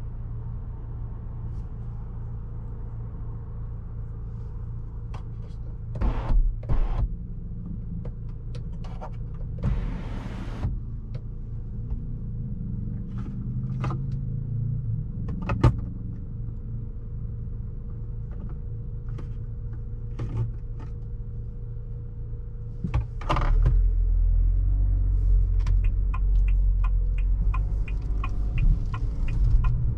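Haval H6-GT's 2.0-litre four-cylinder running at low speed, heard from inside the cabin, with scattered clicks and knocks. About 23 seconds in, the engine note jumps to a much louder, deeper rumble as the car accelerates away. A run of evenly spaced ticks follows near the end.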